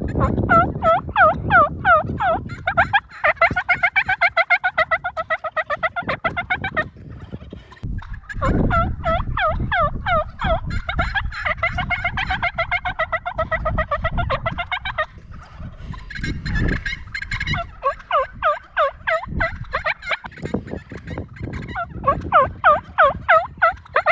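Turkey yelps and cutts in long, fast runs of about five sharp pitched notes a second, breaking off briefly about seven and fifteen seconds in, over a low rumble.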